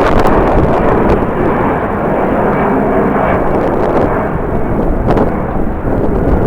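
Jet airliner engines running loud and steady, mixed with strong wind buffeting the microphone.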